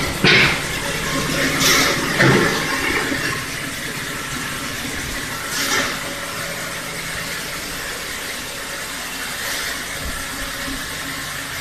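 Steady rushing machinery noise from a feed bagging line, with a few brief louder bursts in the first three seconds and again about six seconds in.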